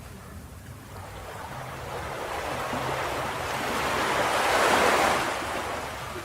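Ocean waves on a beach: one wave builds over a few seconds, breaks about five seconds in and washes back out, over a low rumble of surf.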